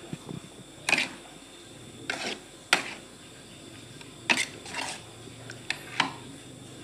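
A cooking utensil clanking and scraping against an aluminium wok while noodles are stir-fried. There are about eight sharp clatters at irregular intervals.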